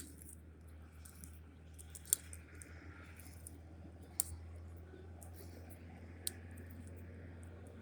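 Four faint sharp clicks, about two seconds apart, over a steady low hum.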